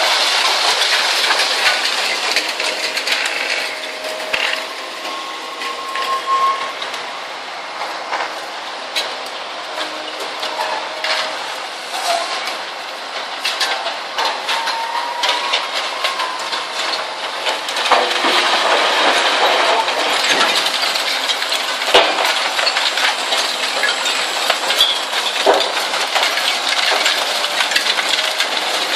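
Zato Blue Devil twin-shaft shear shredder tearing up scrap steel: a steady din of crunching, clattering metal with frequent sharp bangs and brief metallic squeals, busier in the second half.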